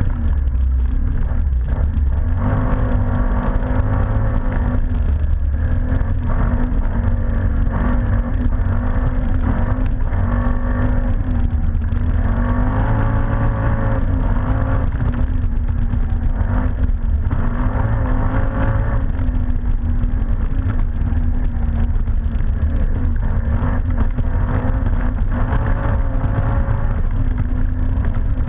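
ATV engine running while riding, with a heavy low rumble and an engine note that rises and falls with the throttle.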